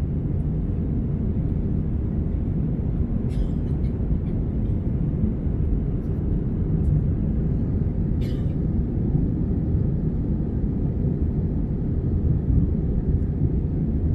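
Steady low rumble of cabin noise inside an Airbus A320 airliner, from its engines and airflow, with a couple of faint clicks.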